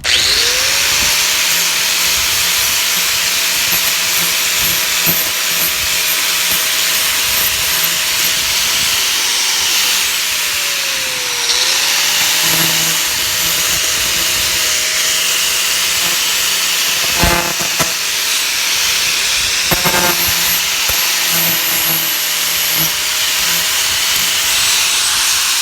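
Electric power tool running continuously with a loud hiss, its motor pitch sagging briefly about halfway through and then picking back up. Two short knocks come later.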